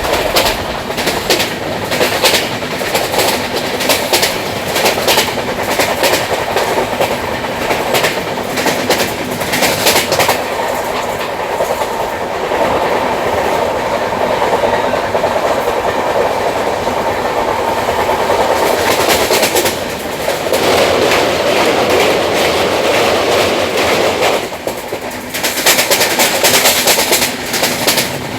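Train wheels running on rails with a rapid clickety-clack over the rail joints. Partway through, the clicking gives way for a stretch to a smoother, steady rumble, then the clatter returns near the end.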